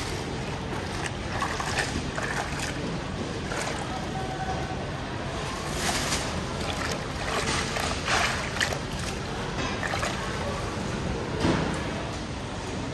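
Plastic bag crinkling and rustling as bunches of bananas are pulled out of it and set down on a table, in short irregular bursts over a steady background hum.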